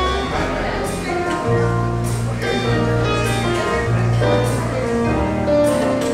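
Electronic keyboard being played: a melody of changing notes over long held bass notes.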